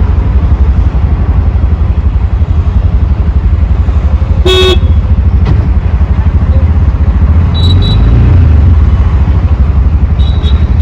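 Auto rickshaw's small engine running with a fast, even throb, heard from on board during the ride. A vehicle horn honks once, briefly, about halfway through. A couple of short high beeps come later.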